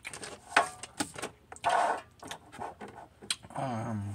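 Pokémon trading cards and card boxes handled by hand: a quick series of light clicks and taps with a brief sliding rustle, then a short voiced hum near the end.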